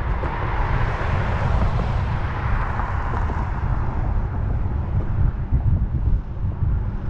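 Wind buffeting the microphone of a camera on a moving scooter, a heavy, uneven rumble, with road and tyre hiss that swells over the first few seconds and then fades.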